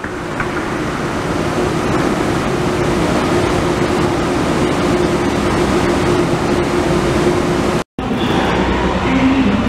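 ICE high-speed train at the platform: a steady whir and hum with a constant mid tone. About eight seconds in, after a brief dropout, this gives way to the low rumble and short whine of an ICE 3 train rolling in.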